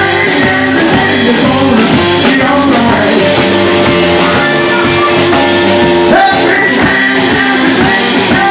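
Live electric blues band: amplified harmonica played into a hand-cupped microphone, holding one long note in the middle and then bending upward, over two electric guitars and drums with regular cymbal strokes.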